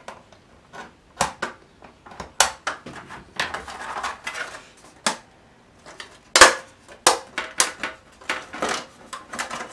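Thin vacuum-formed plastic sheet being bent and snapped apart along knife-scored lines, a series of sharp cracks and clicks with crinkling between them as the scored pieces break free.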